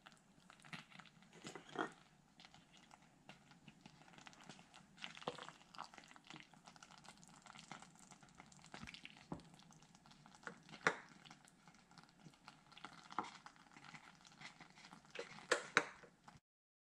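A wooden spoon scooping saucy pasta out of a slow-cooker crock and onto a plate: faint squelches and scrapes with a few sharper taps scattered through.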